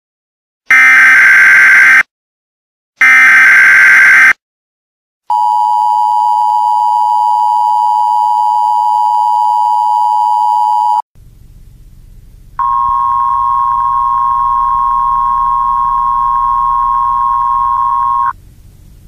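Emergency Alert System broadcast tones: two short bursts of the rasping digital header data, then the two-tone attention signal held for about six seconds, then, after a brief pause with a low hum, a single steady tone for about six seconds.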